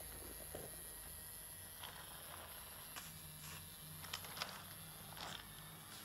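Battery-powered wooden toy Shinkansen train running on plastic track: its small electric motor gives a steady low hum, with a few light clicks as it rolls along.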